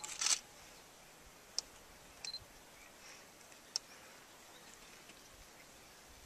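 Still camera shutter clicking several times, the loudest just after the start, with short high beeps like a focus-confirmation beep, over a quiet background.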